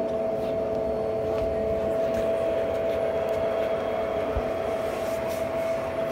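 Model trains running on a large layout: a steady electric hum with two held tones over a low rumble, with a few faint clicks.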